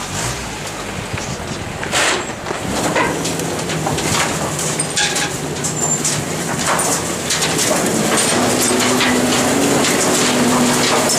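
A small garbage truck running as it moves off and pulls up again, with scattered knocks and rattles. A steady hum sets in about eight seconds in.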